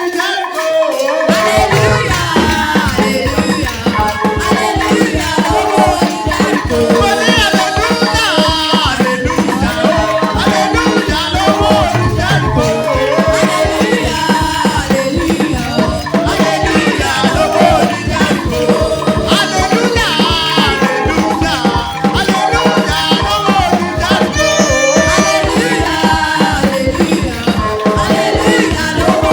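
Upbeat church praise music: a band with a steady beat, bass and a fast shaker rattle, with voices singing over it. The beat and bass come in about a second in.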